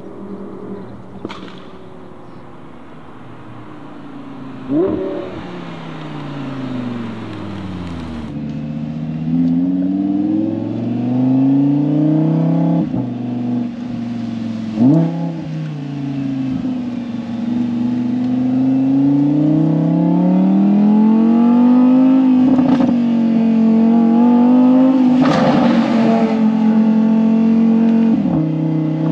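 Audi R8 V10 Spyder's V10 engine through its ASG valved exhaust, under way: the engine note falls away over the first several seconds, with quick sharp rev blips about five and fifteen seconds in, then rises and falls with the throttle and grows louder toward the end.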